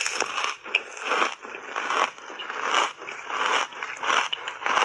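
Close-miked chewing of ice chips coated in matcha powder: a quick series of crisp crunches, about two to three a second.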